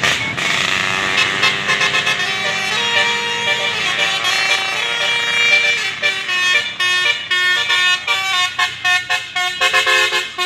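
Basuri telolet horn on a tour bus playing a melody of several pitched notes, held at first and then broken into many quick short toots over the last few seconds.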